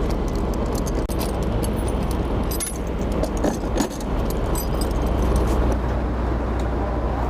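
Steady low running hum, like an engine or vehicle idling, with many light metallic clicks and clinks over it, thickest in the first half.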